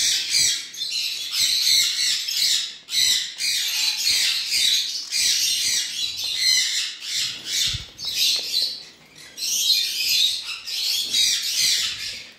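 Several pineapple green-cheeked conures squawking and chattering, harsh high calls following one another in quick succession, with a short lull about nine seconds in.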